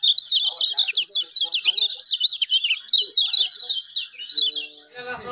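Kecial kuning singing a fast, unbroken twittering song of short, high sweeping notes, the energetic 'ngejos' song that such recordings are played to draw from caged birds.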